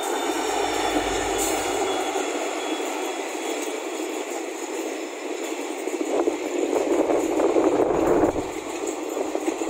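WDP4D diesel locomotive's 16-cylinder EMD two-stroke engine running as it passes close, its low rumble fading within the first few seconds, followed by passenger coaches rolling past with a clatter of wheels on the track that grows louder from about six seconds in.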